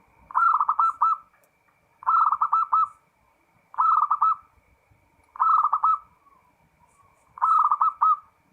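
Zebra dove (perkutut) cooing its song: five short phrases, each a quick run of about four soft rolling coos, repeated at a steady pace roughly every second and a half to two seconds.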